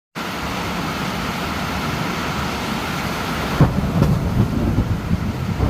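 Steady rain, then about three and a half seconds in a thunderclap breaks into a low rolling rumble of thunder that goes on under the rain.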